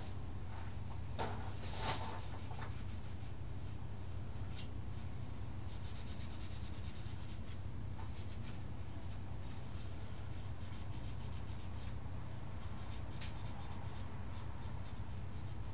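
Steel wool scrubbing paint overspray off a dirt bike's intake boost bottle: soft, scratchy rubbing strokes, a little louder about one to two seconds in, over a steady low hum.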